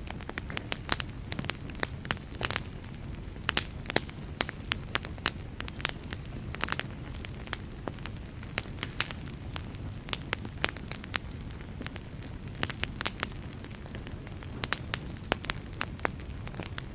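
Wood fire crackling, with frequent irregular sharp pops over a low, steady rumble.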